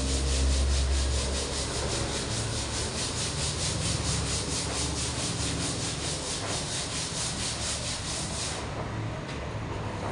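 400-grit sandpaper rubbed over cured body filler on a dented car panel in quick, even back-and-forth strokes, a dry scratching hiss that stops about eight and a half seconds in. A low hum fades out in the first second and a half.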